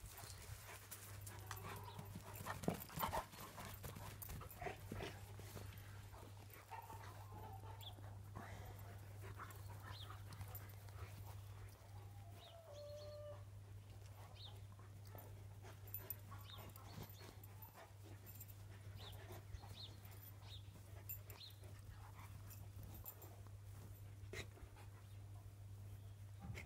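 Two Tornjak (Bosnian-Croatian shepherd) dogs play-wrestling on grass: faint panting and scuffling with a few brief soft vocal sounds, the loudest bumps a couple of seconds in.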